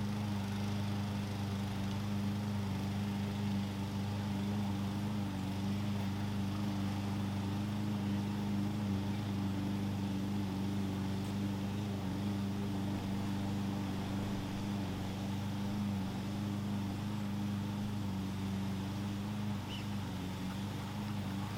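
Small gasoline push mower engine running steadily at a constant speed, with slight dips in pitch now and then.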